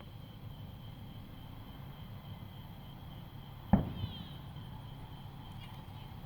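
Crickets and other insects chirping steadily in a high, even tone, with a single sharp bang about four seconds in.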